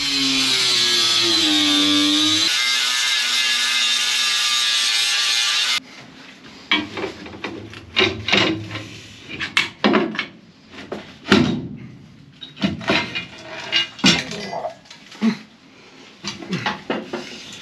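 Angle grinder grinding the plugs off a rusty steel plate: a loud, steady grind whose pitch sags a little under load, cutting off abruptly about six seconds in. Then irregular knocks, clanks and scraping on the steel plate.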